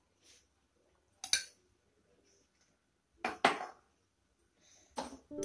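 A steel spoon clinking and knocking against a kadai a few times: once about a second in, twice in quick succession past three seconds, and once near the end, with near silence between.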